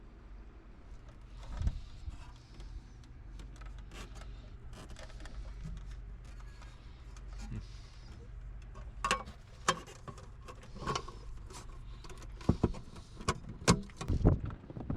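Scattered clicks, knocks and rattles of hands and tools moving parts while searching in a cramped compartment, growing busier and louder near the end, over a steady low hum.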